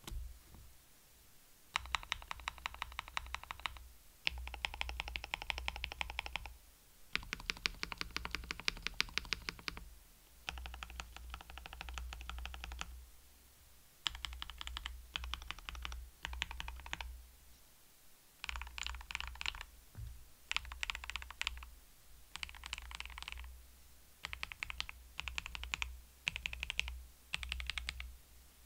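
Typing on a KBDFans KBD67 Lite R2 mechanical keyboard rebuilt with a replacement PCB and a mute silicone gasket. Quick runs of keystrokes a second or three long come in about a dozen spurts with short pauses between them.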